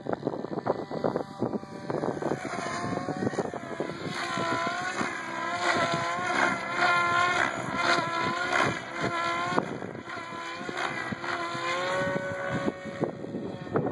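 SAB Goblin 770 electric RC helicopter in flight, the whine of its rotors and drive repeatedly rising and falling in pitch as it manoeuvres.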